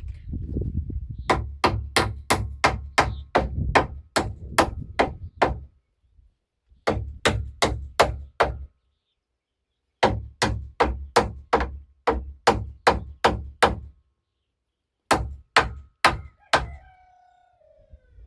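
Hammer pounding on a wooden door frame in quick runs of blows, about three a second, with short pauses between the runs. A brief squeak falling in pitch comes near the end.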